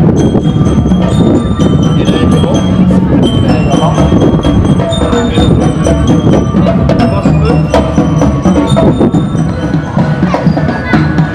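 Marching drum band playing: snare and bass drums beating with bell lyres ringing out a tune over them.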